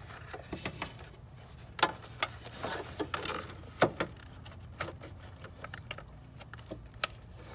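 Plastic wiring-harness connectors and wires being handled in an engine bay: scattered small clicks and knocks of plastic against plastic and metal, with three sharper clicks about two, four and seven seconds in, as a connector is pushed onto a sensor.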